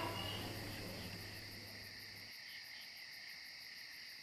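Faint, steady chirring of crickets, with a low hum underneath that cuts off about two seconds in.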